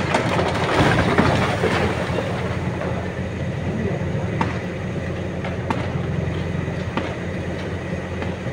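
Masonry and rubble crashing down from a cracked, earthquake-damaged building during demolition: a rattling rush for about the first two seconds, then three sharp knocks, over the steady low hum of the aerial platform's engine.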